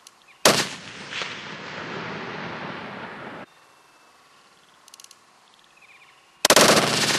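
Two hunting-rifle shots about six seconds apart, each trailing off in a long rolling echo. The first echo cuts off abruptly about three seconds in.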